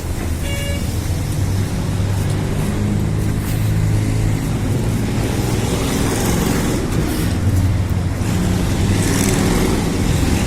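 Road traffic with a motor vehicle's engine running close by: a steady low hum with traffic noise over it. A short high beep sounds about half a second in.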